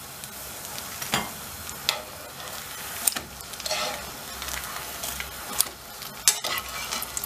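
Egg-dipped bread slices sizzling in hot oil in a frying pan, with several sharp clicks of metal tongs against the pan as the slices are lifted and turned.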